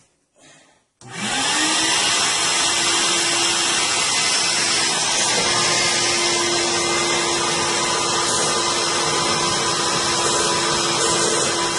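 Wet/dry shop vacuum switched on about a second in, its motor whining up to speed and then running steadily, drawing standing water out of a blocked drain.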